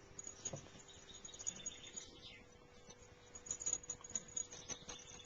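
Papillon puppy scampering about: faint light pattering and clicks, with a faint high squeak that falls in pitch about two seconds in.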